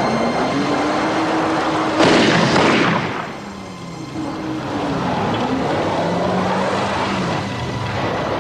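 A car engine rising and falling in pitch, with a loud burst of noise about two seconds in that dies away over about a second.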